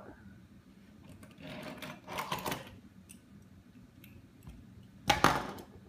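A small toy car rattling as it is handled and rolled over a wooden tabletop, in two bursts: one about a second and a half in, and a louder, shorter one near the end.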